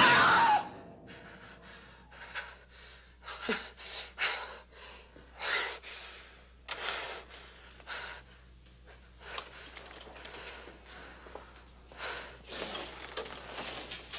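A person gasping and breathing hard in short, uneven breaths, frightened after waking from a nightmare. A burst of music cuts off in the first half-second.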